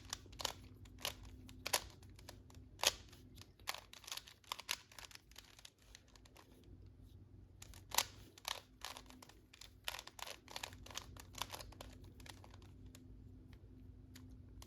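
A Rubik's cube being turned by hand: its plastic layers click and clack in quick, irregular runs of turns, several a second at times.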